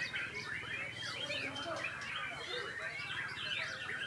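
Many caged white-rumped shamas (murai batu) singing at once: a dense, steady chorus of overlapping whistles, trills and chirps.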